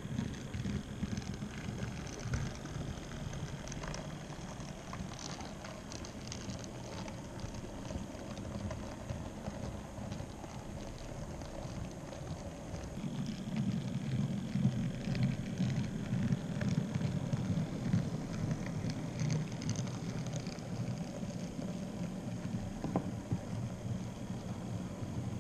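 N-scale model freight train running along the layout's track: a steady rumble of small wheels with many light clicks over the rail joints, louder from about halfway through as the wagons pass close by.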